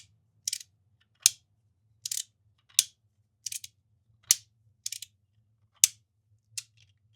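Brick Click Flip Side magnetic fidget slider being worked back and forth, its magnetic pieces snapping into place: a run of about nine short sharp clicks, evenly spaced, alternating a softer click with a sharper snap.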